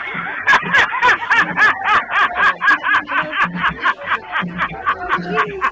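A man's rapid, repeated laughter from a laughing-man meme clip, in short bursts about four or five a second.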